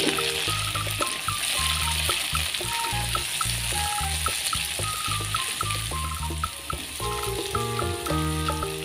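Food sizzling steadily in hot oil in a frying pan, under background music with a bass line and a short-note melody.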